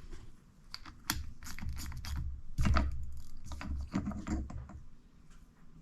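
Irregular sharp clicks and light knocks of tools and parts being worked while the front seal assembly of an Eaton hydraulic motor is taken apart.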